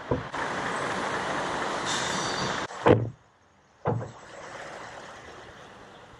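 A loud, even hiss lasting about two seconds that cuts off suddenly, followed by two heavy thumps about a second apart, the first of them the loudest sound; then a quieter steady outdoor background.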